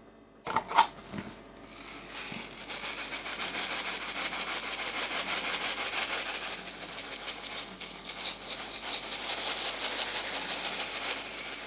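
Breadcrumbs being shaken out over a dish: a steady, fast, fine rustling patter that starts about a second and a half in, after a couple of small clicks.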